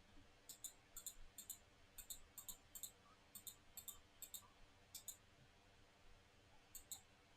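About a dozen faint, sharp clicks, many in quick pairs, coming irregularly over the first five seconds, then two more near the end, over near silence.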